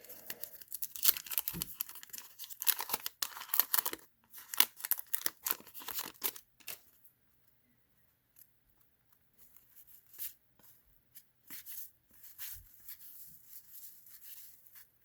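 A 1990 Fleer basketball card wax pack being torn open, its paper wrapper ripping and crinkling for the first several seconds, then sparse light rustles and ticks as the cards are handled.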